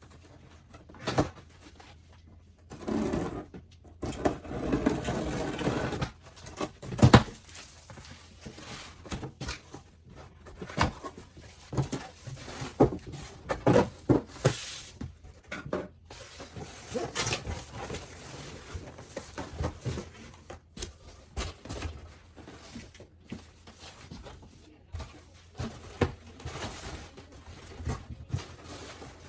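Cardboard box and packing materials being handled and opened: irregular knocks, taps and scrapes, with a longer stretch of rustling about three to six seconds in.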